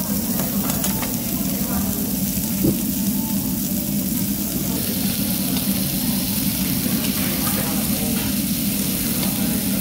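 Pork belly strips sizzling on a tabletop Korean barbecue grill pan, a steady frying hiss over a low, even hum.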